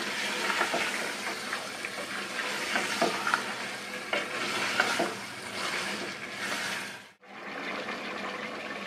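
Beef chunks sizzling as they fry in spiced masala in an aluminium pressure cooker, stirred with a wooden spoon that scrapes and knocks against the pot. The sound breaks off briefly about seven seconds in.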